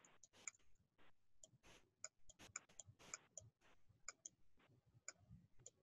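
Near silence with faint, irregular small clicks and taps, a stylus tapping and writing on a tablet.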